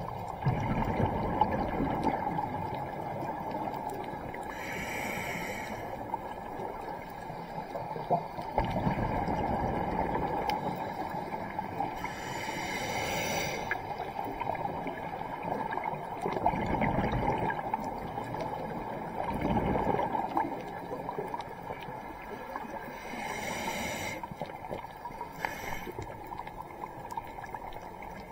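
Scuba diver breathing through a regulator underwater, about three breath cycles: a short hiss on each inhale, and on each exhale a low rush of exhaust bubbles.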